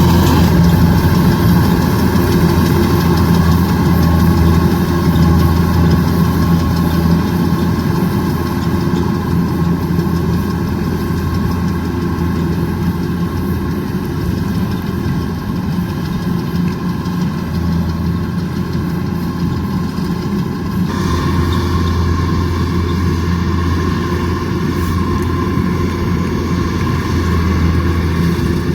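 Kubota DC105X combine harvester's diesel engine running steadily under load, with the threshing machinery going; the tone shifts slightly about 21 seconds in.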